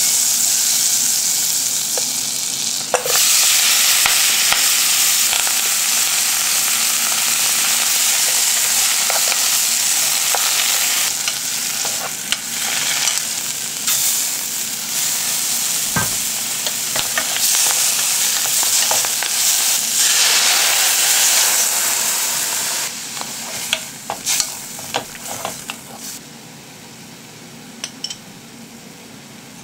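Butter and then komatsuna and scallops sizzling as they fry in a saucepan, stirred with a wooden spoon that scrapes and taps the pan now and then. The sizzling drops away about 23 s in, leaving a few light taps and a much quieter simmer.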